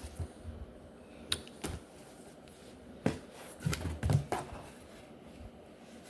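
Comic books and their plastic packaging being handled: scattered sharp clicks, taps and short rustles, busiest about three to four and a half seconds in.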